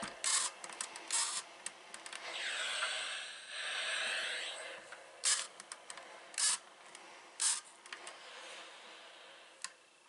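Panasonic cordless steam iron pressing wool appliqué: a longer hiss of steam a couple of seconds in, then several short puffs of steam, with light clicks and knocks of the iron being handled.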